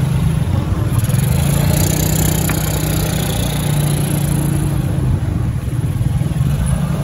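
Small motor scooter engine running steadily at low speed, heard from the pillion seat while riding, with a continuous low hum.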